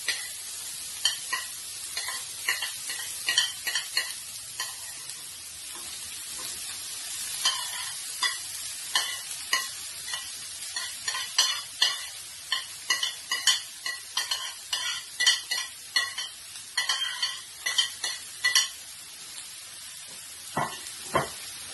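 Diced carrot, chopped onion and chili sizzling in hot olive oil in a pan, with many short clicks and scrapes of a utensil stirring against the pan.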